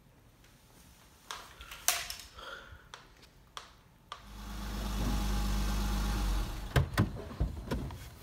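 A few scattered clicks and knocks, then a car engine runs steadily for about two seconds and cuts off. Several sharp knocks follow, typical of a car door being opened and someone getting out.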